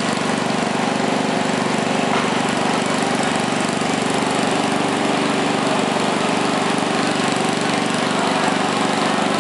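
Garden pulling tractor's engine running steadily at an unchanging speed, without revving.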